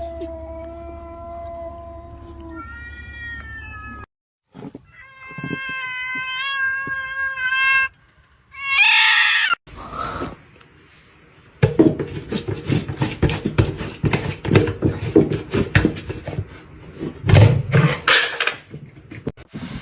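Cats meowing in several long, drawn-out calls, one of them rising in pitch. In the second half, a dense run of rapid scratchy clicks and knocks.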